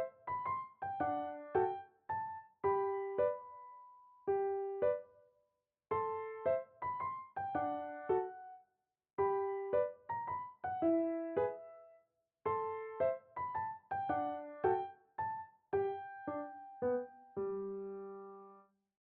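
Soft solo piano background music: short phrases of struck notes and chords, each dying away, with brief pauses between them, closing on a held low chord that fades out near the end.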